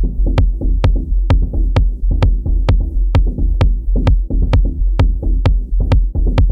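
Electronic drum-machine beat played on Native Instruments Maschine 2. It starts abruptly out of silence, with a sharp hit about twice a second over a heavy, steady bass.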